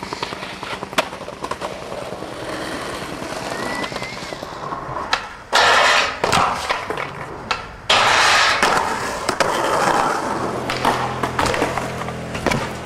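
Skateboard riding: wheels rolling and the board clacking, with sharp pops and knocks, and two loud rough stretches about five and a half and eight seconds in.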